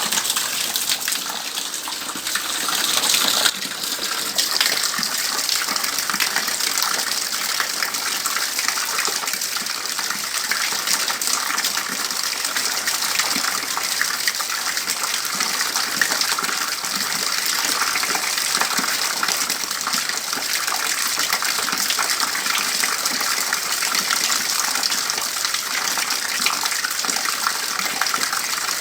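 Rainwater gushing from a roof gutter into an overflowing bucket: a steady, heavy splashing pour. About three seconds in it swells briefly, then drops back suddenly.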